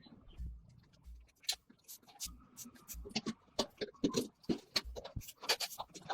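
Irregular light clicks, taps and scrapes of hand tools on metal motorcycle parts during disassembly, sparse at first and coming thicker from about halfway, with a few soft low bumps.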